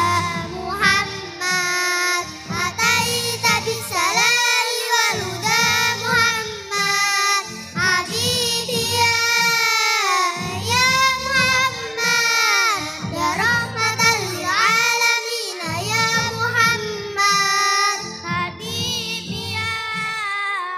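Young girls singing an Islamic sholawat song together into microphones through a PA system, over instrumental backing music.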